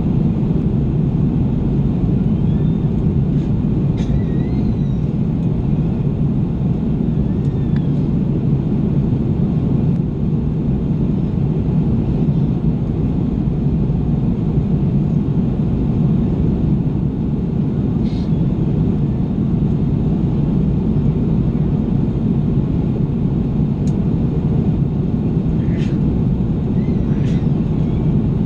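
Steady, low cabin roar inside an Airbus A330 in flight, from its engines and the air rushing past, heard at a window seat beside the wing.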